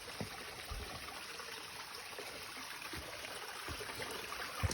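Running water, a stream flowing and trickling steadily, with a soft low thump near the end.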